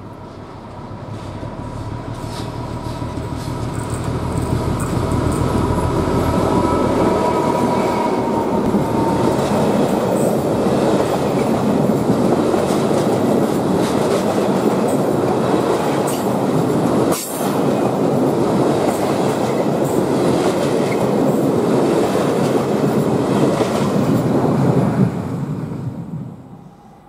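Freight train of flat wagons loaded with concrete sleepers rolling past: a steady rumble and clatter of wheels on the rails, building over the first few seconds and fading out near the end. A thin high wheel squeal sounds over the first several seconds.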